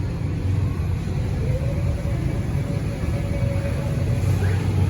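Steady low rumble of passing road traffic. A faint engine note rises and holds for a couple of seconds near the middle.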